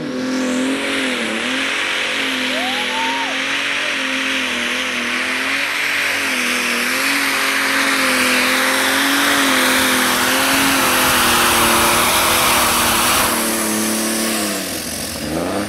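A John Deere-badged competition pulling tractor's turbocharged diesel engine at full power through a pull. A steady, hard-working engine note wavers slightly in pitch under a loud hissing rush. The rush eases about 13 seconds in and the engine note drops away near the end as the run finishes.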